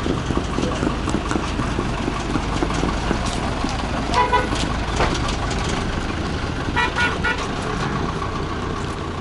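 Steady vehicle and traffic rumble with two short horn toots, one about four seconds in and another about seven seconds in.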